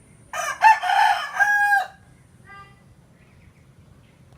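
Rooster crowing once: a loud cock-a-doodle-doo lasting about a second and a half that ends on a held note, followed by a faint short call a moment later.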